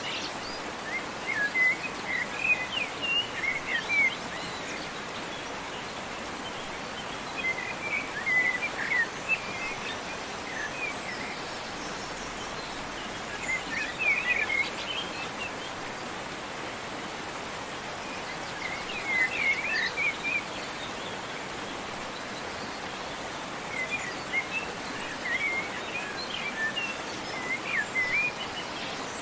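Small birds chirping in short clusters of quick high chirps every few seconds, over the steady rush of a waterfall.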